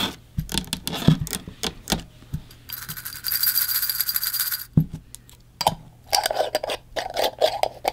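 Fossil shark teeth clicking and clinking against each other as they are gathered and dropped into a jar, with a scraping rub of about two seconds in the middle.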